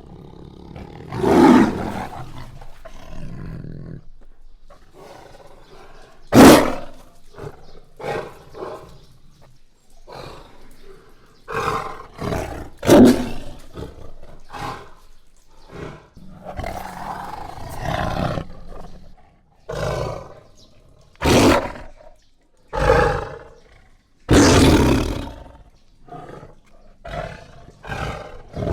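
Jaguar roaring: about a dozen separate rough roars of varying length, with short pauses between them.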